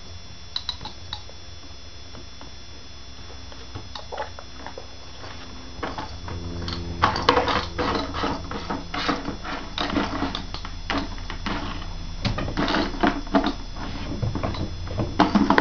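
Hard plastic toy knocking and clattering on a wooden tabletop, with small hands patting the table: a few scattered taps at first, then a busy run of rapid knocks from about six seconds in.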